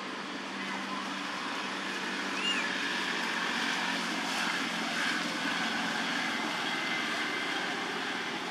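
Steady hum and noise of a distant engine, with one brief chirp about two and a half seconds in.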